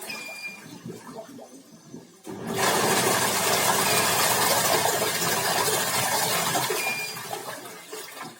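Washing machine running with water rushing in the tub, powered from a 600 VA UPS under a load test; the rush starts suddenly about two seconds in and eases off near the end.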